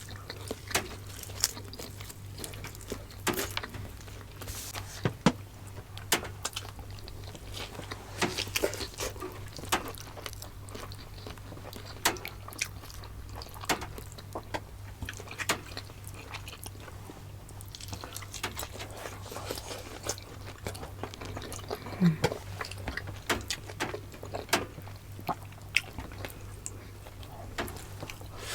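Close-miked mouth sounds of people eating: chewing, smacking and biting, many short wet clicks at an uneven pace, over a steady low hum.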